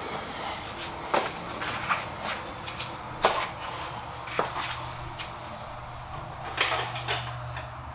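Scattered knocks and clunks of hand work on the car's brake booster and master cylinder, four or five sharp strikes a second or two apart, over a steady low hum.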